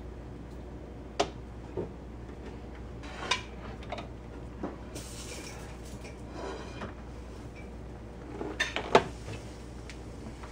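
Scattered clicks and knocks of a reverse osmosis drain connector clamp being handled and fitted around a PVC sink drain pipe, with two short scraping rustles in the middle. A quick cluster of knocks comes near the end, the loudest about nine seconds in.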